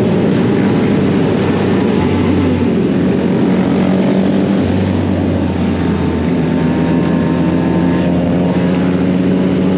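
Motorcycle engine running at a steady pitch under a wash of wind noise.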